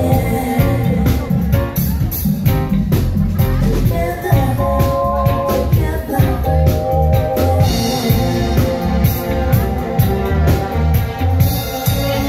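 Live reggae band playing loud with a steady beat, heavy bass and drums, and keyboard chords.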